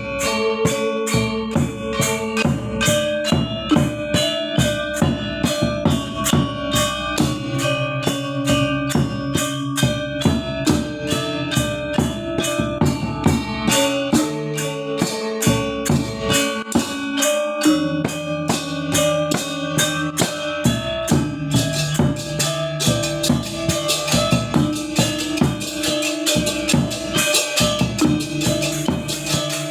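Balinese gamelan gong ensemble rehearsing: struck bronze keys and gongs ringing in a fast, steady stream of strikes. The playing grows denser and brighter about two-thirds of the way through.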